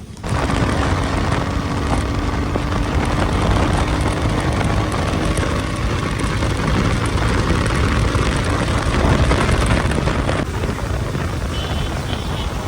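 Motorcycle riding on the road, its engine running under a heavy, steady rush of wind on the microphone. The noise starts suddenly and shifts abruptly about ten seconds in.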